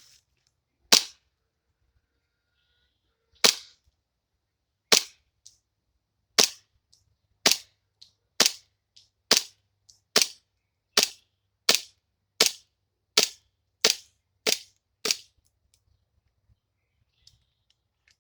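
WE Walther P38 replica green-gas blowback airsoft pistol firing fifteen sharp shots, the first few about two seconds apart, then quickening to well under a second apart, stopping about fifteen seconds in.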